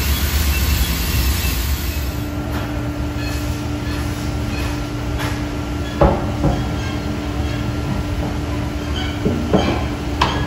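Feed-loading plant machinery running with a steady, loud rumble, joined by a steady hum about two seconds in. A few knocks and scrapes come about halfway and again near the end, while the trailer is swept out.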